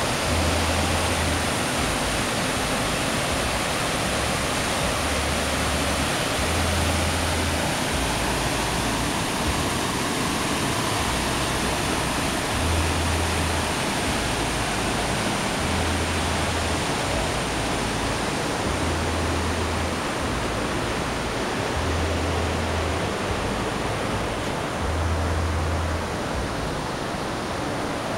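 River rapids rushing over rocks: a steady, unbroken rush of whitewater.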